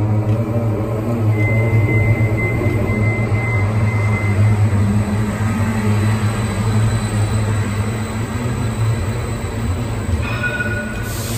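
Tram running on rails: a steady low rumble and hum, with a thin high wheel squeal from about one to four seconds in.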